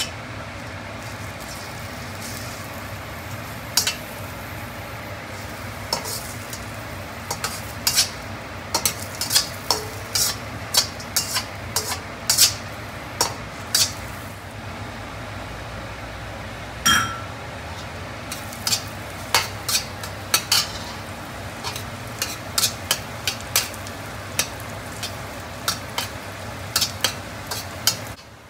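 Dried shrimp sizzling in oil in a stainless steel wok while a spatula scrapes and knocks against the pan in irregular sharp clicks, with one louder ringing knock about 17 seconds in. The shrimp are being stir-fried until aromatic and slightly dark brown.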